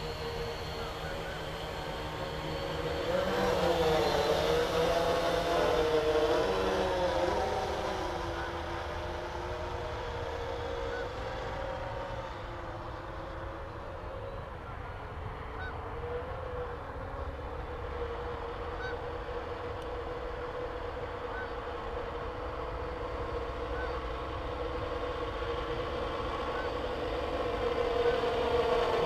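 R/C Lunar Module quadcopter in flight, its motors and propellers giving a steady whirring hum whose pitch wavers as the throttle changes. It is louder from about three to seven seconds in and swells again near the end.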